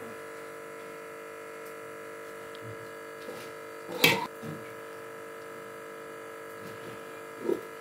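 Steady electrical hum in a small kitchen, with a short knock about four seconds in and a fainter one near the end.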